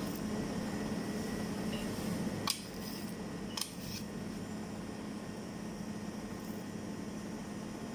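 Steady mechanical hum of kitchen equipment, with two sharp clicks about two and a half and three and a half seconds in: a metal knife blade knocking on the granite counter as the millefeuille is sliced.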